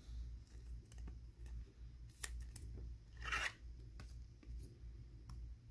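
Faint handling noises of a trading card and plastic card sleeves: scattered light clicks and one short rustling slide about three and a half seconds in.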